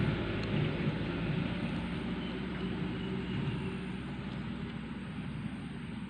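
A steady engine drone that slowly fades.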